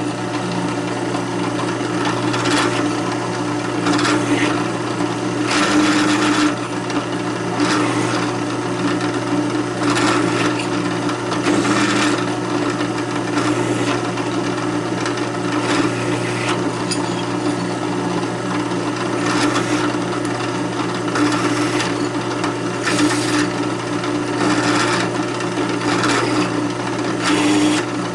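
Drill press motor running steadily while a countersink bit is fed into the holes of a steel knife blank again and again, each cut a short grinding scrape over the motor's hum, repeating every couple of seconds.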